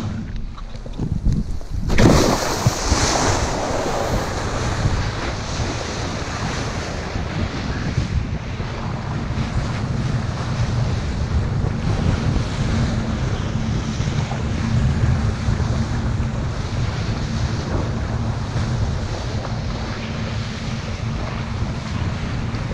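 Wind buffeting the microphone over the rush and hiss of water spraying from under a kiteboard riding fast across choppy water, with a louder burst of spray about two seconds in.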